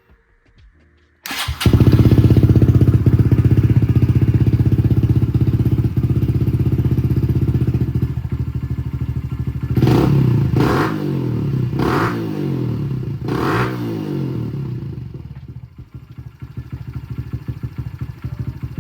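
Honda CRF125F's single-cylinder four-stroke engine starting about a second in and running, fitted with a new billet intake manifold and not yet retuned. The throttle is blipped four times in the middle, and the engine runs quieter near the end.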